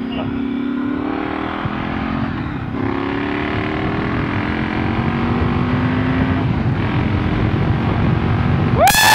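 Triumph Scrambler 1200's parallel-twin engine accelerating hard from a pull-away, its pitch rising, dropping at upshifts about three and seven seconds in, then rising again. Wind rush grows louder as speed builds, and a rider's shout of "woo" starts at the very end.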